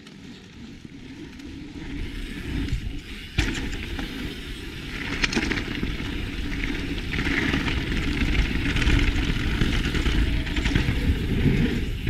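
Mountain bike rolling down a gravel trail and gathering speed: tyres crunching over gravel and wind rushing over the action camera's microphone, growing steadily louder. There is one sharp knock about three and a half seconds in.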